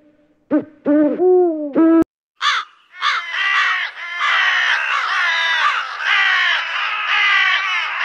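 An owl hooting, a few short low hoots, then an abrupt cut to crows cawing, many harsh caws overlapping in a continuous chorus.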